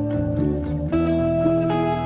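Background music: soft acoustic guitar playing held chords, the chord changing about a second in.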